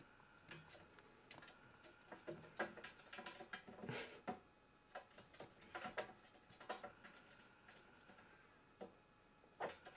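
Faint, irregular clicking and ticking of a young red squirrel's claws on a metal wire rack as it climbs about, a little louder about four and six seconds in.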